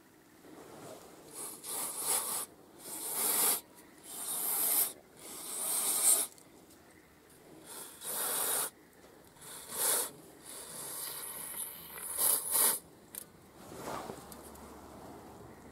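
Aerosol spray can being sprayed onto a diesel engine in a series of short hissing bursts, about eight in all, each under a second long.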